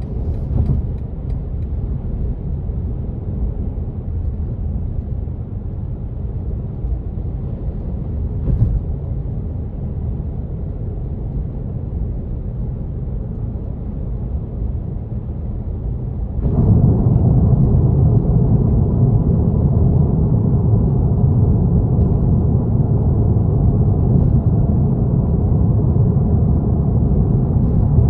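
Car tyre and road noise at expressway speed, heard from inside the car: a steady low rumble with a single thump about eight and a half seconds in, and it gets abruptly louder about sixteen and a half seconds in.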